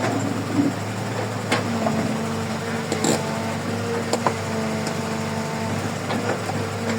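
Heavy construction machine's diesel engine running steadily, with several sharp clanks and knocks scattered through.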